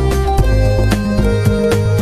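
Background music: an instrumental track with plucked strings and a steady beat.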